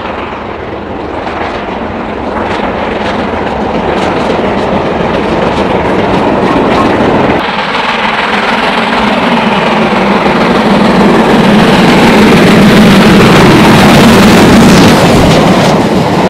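Steam-hauled trains at speed. First comes a steam locomotive's chuffing exhaust. From about seven seconds in, a train rushes through a station, growing steadily louder as the locomotive and its coaches pass close by.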